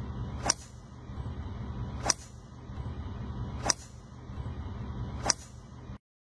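Golf driver striking a ball off the tee: a sharp crack heard four times, evenly about a second and a half apart, over a steady low rumble. The sound cuts off to silence near the end.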